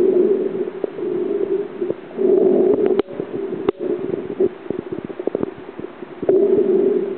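Muffled underwater noise picked up by a submerged camera: a low hum that comes and goes in stretches of a second or two, with two sharp clicks about three seconds in, followed by a spatter of small pops and crackles.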